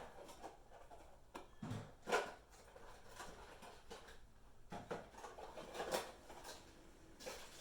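Faint handling noises from fitting a smart dimmer switch into an electrical wall box: a few scattered knocks, clicks and rubs, the loudest about two seconds in and again near six seconds.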